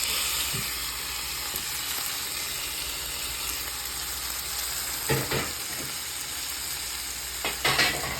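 Seasoned shrimp and minced garlic sizzling in a hot oiled pan with onions and peppers, a steady frying hiss. A couple of sharp clatters from stirring against the pan come about five seconds in and again near the end.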